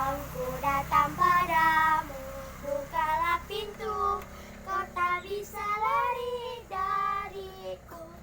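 A child singing in a high voice, drawn-out wavering notes in short phrases with brief pauses between them.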